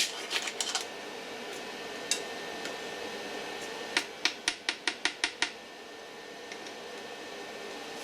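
A quick run of about eight sharp clicks, coming slightly faster as they go, a few seconds in, with a few scattered clicks before, over a steady faint hum.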